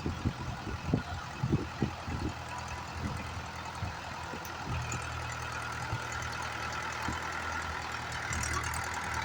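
Mahindra 575 DI XP Plus tractor's diesel engine running steadily at low speed, with a few irregular low thumps in the first two seconds or so.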